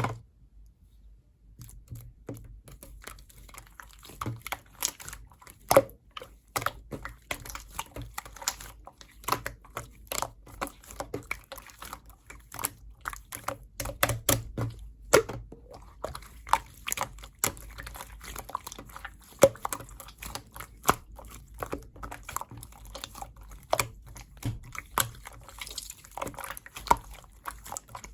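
Slime being squished and poked by hand, making a stream of irregular wet clicks and pops, several a second.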